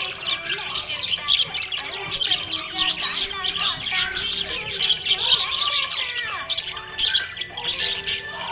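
Several small parrots chirping and squawking continuously in dense, overlapping, rapid calls.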